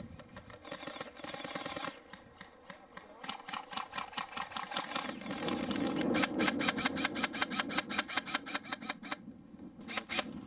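Airsoft electric gun firing on full auto: runs of rapid, evenly spaced clicking shots at about nine a second, with the longest and loudest run in the second half and a brief pause before more shots near the end.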